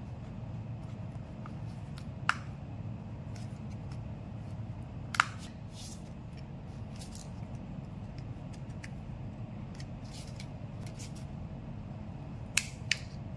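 Small sharp clicks and taps of a screwdriver and plastic phone casing as a feature phone is unscrewed and its plastic frame pried apart, with a pair of louder snaps near the end. A steady low hum runs underneath.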